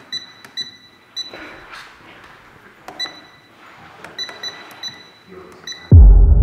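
Electronic keypad lock on a wall safe beeping as its keys are pressed: short identical beeps, one per press, in two runs with a pause between. About six seconds in, a loud deep rumble starts suddenly.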